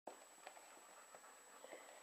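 Near silence with a few faint soft taps and scuffs as a ferret pounces on a small stuffed cat toy on carpet.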